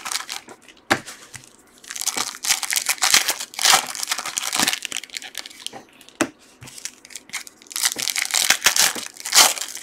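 Football trading card pack wrapper being torn open and crinkled by hand, in several bursts of crackling.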